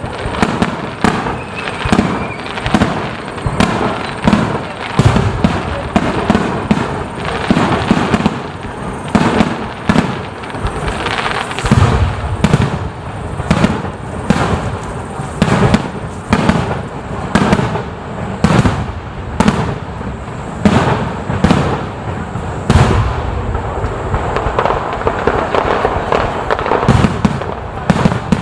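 Fireworks display in a rapid barrage: shells bursting one after another, several bangs a second, over a continuous crackle, with heavier booms about twelve seconds in and again near twenty-three seconds.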